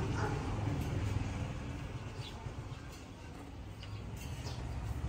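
Car running on the road: a steady low rumble of engine and road noise, with a few faint short high sounds over it.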